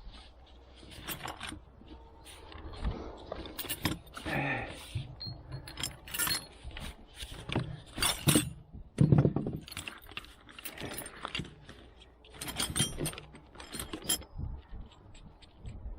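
Metal hand tools and parts clinking and clanking as they are handled and set down, with scattered knocks; the heaviest knock comes about nine seconds in.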